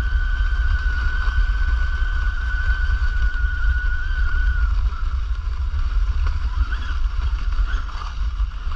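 Large-scale electric RC car with a brushless motor running over snow, a steady high motor whine that fades out about halfway through, over heavy low rumble.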